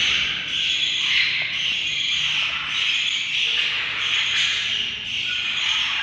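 Budgies chattering steadily, a dense high twittering that swells and fades every second or so.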